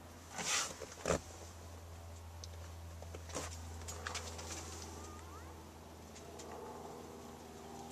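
Camera handling noise: a brief rustle and a few sharp clicks and knocks as the camera is moved through a car cabin, over a steady low hum.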